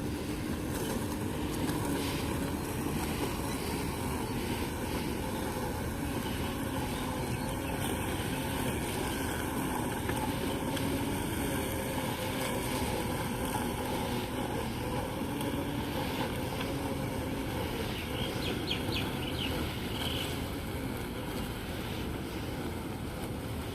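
Robotic lawn mower running steadily as it cuts wet grass: a low motor hum that wavers slightly in pitch. A few short ticks about nineteen seconds in.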